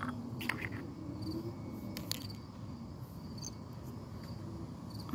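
Crickets chirping steadily in short, high chirps, with a few light clicks of a glass beaker and bottle being handled on concrete, about half a second in and again about two seconds in.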